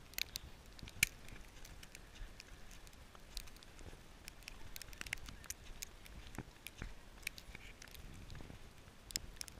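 Footsteps crunching through fresh, deep snow: a string of irregular soft crunches and clicks, about one a second.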